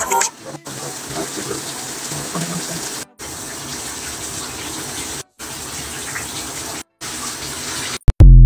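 Steady rushing hiss, like running water or a fan, broken by four brief dead drop-outs. Just before the end comes a sudden very loud low boom.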